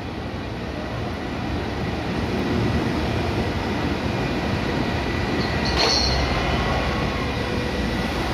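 CC 300 diesel locomotive running as it moves slowly against a freight wagon, a steady rumble that swells over the first few seconds and then holds. A single sharp metallic clank rings out about six seconds in.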